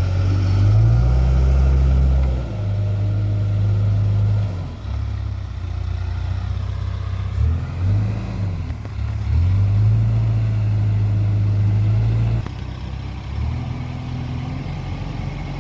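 Heavy diesel engine of working farm or earth-moving machinery running loud and low. Its note drops and recovers twice near the middle as the engine takes load, and its level eases a couple of times.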